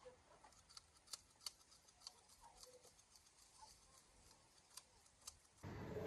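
Faint, scattered clicks of hand hoof-trimming clippers being worked open and shut, their blades sticking on a burr left after the rust was wire-brushed off.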